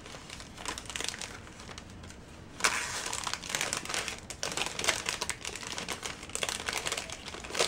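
Thin clear plastic bags crinkling and rustling as muffins are slipped into them and the bags are handled. The crinkling is light at first and gets louder and busier from about two and a half seconds in.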